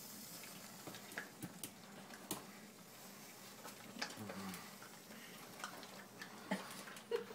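Boston terrier licking whipped cream from the nozzle of an aerosol can: faint, scattered ticks of licking and smacking.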